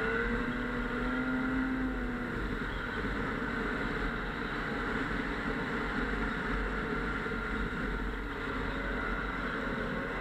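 Snowmobile engine running under way, its pitch dipping and rising a little with the throttle, over a steady rushing noise.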